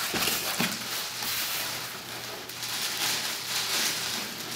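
Cardboard shipping box being opened and handled by hand: irregular rustling, scraping and crackling of the cardboard, with a few short knocks.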